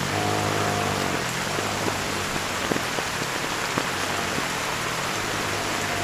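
Heavy rain falling steadily, with a few sharper drops striking close by. A faint pitched hum under the rain, with a higher tone in the first second, fades out over the first few seconds.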